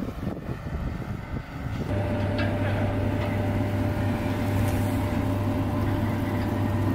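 Machinery of a launch-pad transporter-erector raising a Soyuz-2.1v rocket to vertical: uneven low rumbling at first, then about two seconds in a steady mechanical hum with a low drone and a thin higher tone sets in and holds.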